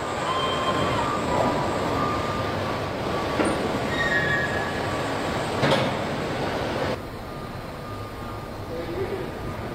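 Car-factory machinery noise: a steady industrial din with thin high whines as the robot arms move, and a few sharp metallic clanks. About seven seconds in it turns to a quieter, even hum from the assembly-line conveyor.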